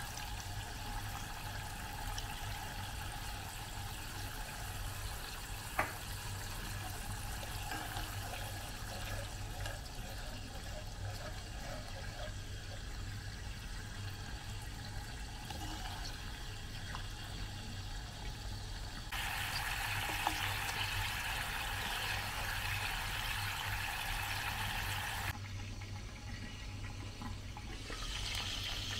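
Pomegranate sauce bubbling in a hot saucepan as oil is poured into it. The sound changes abruptly twice, to a brighter hiss about two-thirds through and then back down, and near the end chicken pieces fry in oil in a pan.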